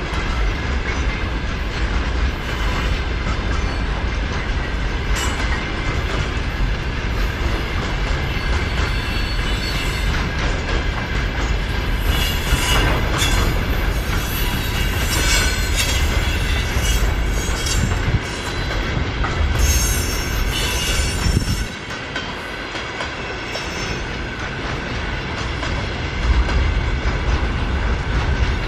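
Container freight train's wagons rolling past at speed: a steady rumble and clatter of wheels over the rails, with stretches of high-pitched wheel squeal in the middle.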